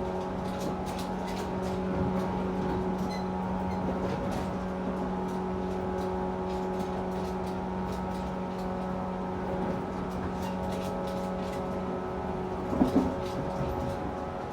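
Running sound inside a 113 series electric train's motor car: a steady traction-motor hum with wheels clicking over rail joints. The hum drops away about eleven seconds in, and a brief louder knock comes near the end.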